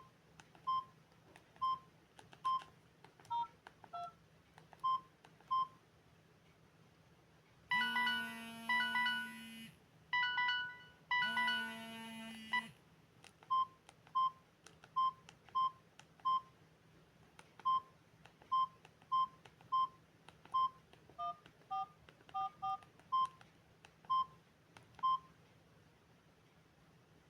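Samsung GT-E1081T mobile phone's key beeps: short single beeps about every second, a few of them at higher or lower pitches. About eight seconds in, the phone plays an electronic ringtone melody in two bursts of about two seconds each, then the key beeps go on.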